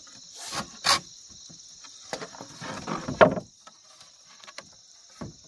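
Insects chirring steadily in a high, unbroken band, with several bursts of rustling and a sharper knock about three seconds in.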